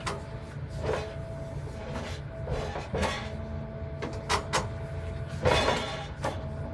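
Hitachi excavator's diesel engine running steadily with a steady whine, while its demolition shear works steel antenna mast sections: a string of irregular metal clanks and scrapes, the loudest about five and a half seconds in.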